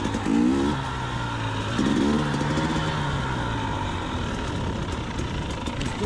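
Single-cylinder fuel-injected two-stroke engine of a KTM 300 XC TPI dirt bike running at low revs, heard from the rider's position. Two short, louder bursts come about half a second and two seconds in.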